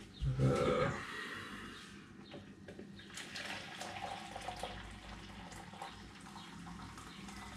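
Boiling water poured from a kettle into a plastic measuring jug: a steady splashing trickle, after a short thump in the first second.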